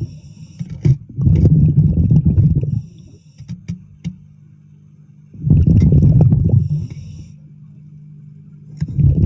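A diver breathing through a regulator underwater: three bubbling bursts of exhaled air about four seconds apart, with a thin hiss of inhalation between them, over a steady low hum.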